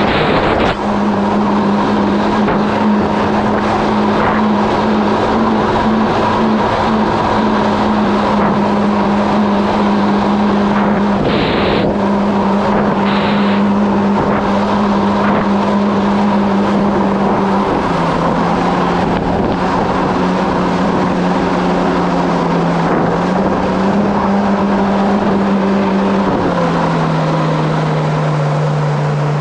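Kawasaki SX-R 1500 stand-up jet ski's four-stroke four-cylinder engine running at a steady cruising throttle, with water rushing past the hull. The engine note steps down about two-thirds of the way through and again near the end as the throttle is eased.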